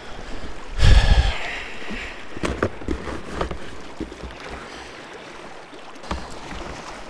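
Water lapping and trickling against a kayak, with scattered small knocks and a louder knock about a second in.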